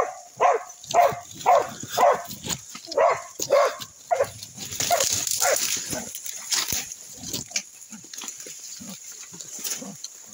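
A dog barking hard and fast, about two barks a second for the first four seconds, at a wild animal it has cornered in the undergrowth; after that the barking breaks into rougher noise and then dies down to scattered quieter sounds.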